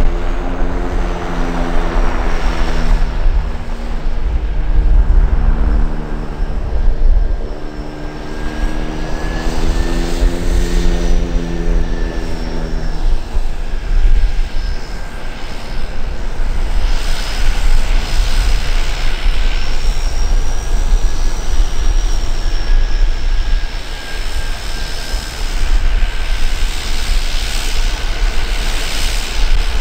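Lancair Evolution's Pratt & Whitney PT6A turboprop running at taxi power: a steady high turbine whine over a low propeller drone. A lower humming tone stops about 13 seconds in.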